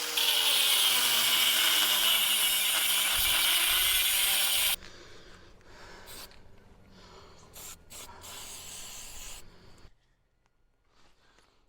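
Angle grinder grinding metal clean, loud and even for about five seconds, its motor pitch sinking steadily. The grinding stops suddenly and the motor winds down over several seconds to near quiet.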